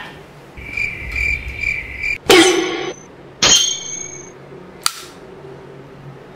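A high, pulsed trill like chirping crickets for about a second and a half, then two sudden loud noises about a second apart and a short sharp click.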